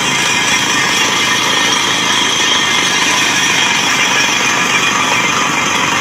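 Truck-mounted water well drilling rig drilling in hard rock with a down-the-hole air hammer: a loud, steady din of the hammer, the rig's compressor and engine, and compressed air blasting rock dust out of the borehole.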